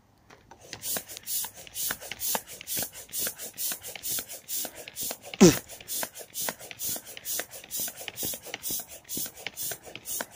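Manual air pump pushing air through a hose into the valve of a vinyl inflatable ride-on, in an even rhythm of short airy strokes, about three or four a second. About halfway through there is one brief, loud squeak that falls in pitch.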